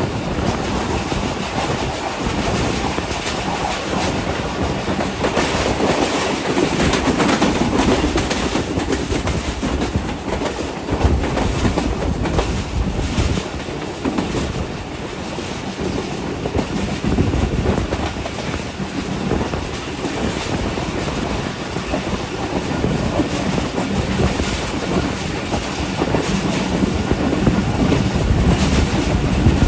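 Passenger train coach running along the track, heard from the open doorway: a steady rumble of wheels on rails with a clickety-clack of wheels passing over rail joints.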